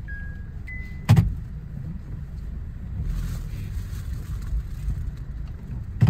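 Steady low rumble of a car, heard from inside the cabin, with a sharp knock about a second in and a faint hiss joining about halfway.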